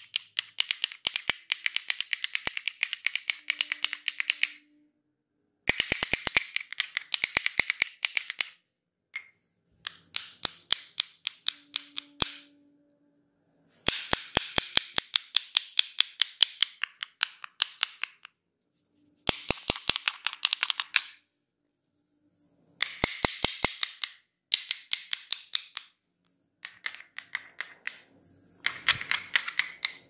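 Pair of wooden massage sticks clicking rapidly, many clicks a second, in bursts of two to four seconds with short pauses between.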